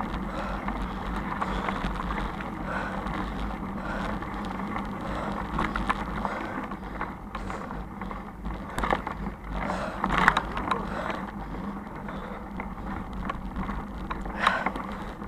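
Bicycle rolling fast over a rough dirt track, tyres crunching and the frame rattling, with a steady low rumble and a few sharper knocks from bumps in the second half.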